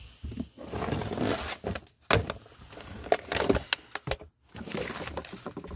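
Loose parts and odds and ends rustling and knocking together as they are rummaged through inside a car, with a handful of sharp clunks among the rustling.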